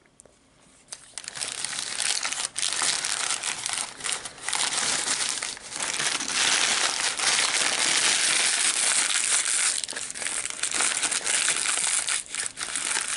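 Paper food packaging being crumpled and rustled close to the microphone, a dense crackling noise that starts about a second in and carries on with brief pauses until near the end.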